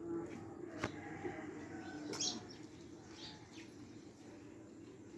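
Birds chirping in short calls, loudest about two seconds in, over a steady low hum, with one sharp click about a second in.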